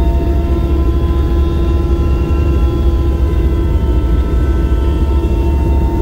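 Aircraft engine noise heard from inside the cabin in flight: a loud, steady deep rumble with several steady whining tones above it.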